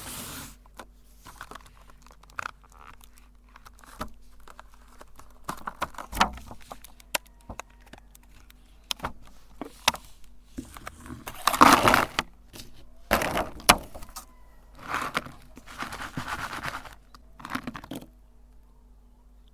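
Irregular handling sounds: sharp clicks and light rattles with bursts of crinkling and rustling, the loudest a little past the middle, then they stop near the end.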